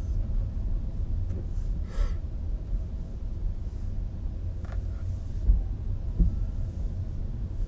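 Steady low rumble of tyre and road noise inside the cabin of a Nissan Leaf electric car driving on a wet surface, with no engine sound. There is a short breathy hiss about two seconds in, and two dull thumps a little past halfway.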